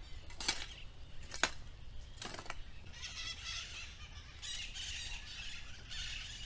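A long-handled garden tool scraping and dragging over dry dirt: a few short, sharp scrapes in the first couple of seconds, then rougher, longer scratching strokes.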